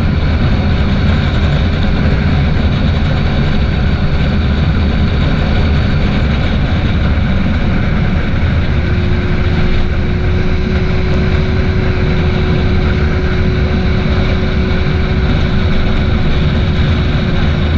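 Yamaha FZ6 inline-four engine running steadily at a highway cruise of about 100 km/h, heard under a constant rush of wind on the microphone. The pitch eases down slightly about halfway through.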